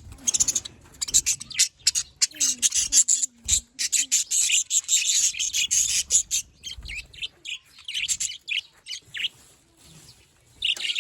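Budgerigars chirping and chattering in a rapid, dense stream of short high chirps, thinning to scattered single chirps after about six seconds.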